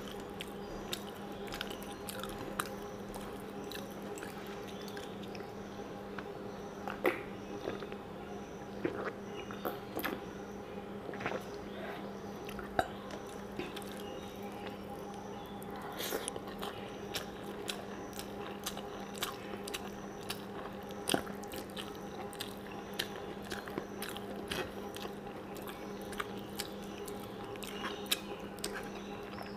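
Close-miked chewing and mouth sounds of a person eating rice and mutton curry by hand, with many irregular clicks, over a steady low hum.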